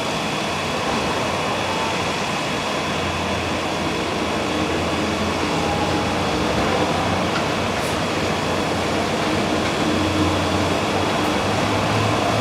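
Monorail train running past with a steady rumble and hum, growing a little louder toward the end.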